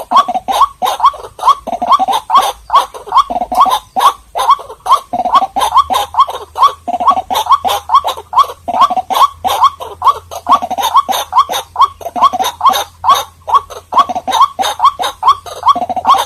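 White-breasted waterhen calling: a rapid, unbroken series of short notes, about four a second, each sweeping upward in pitch.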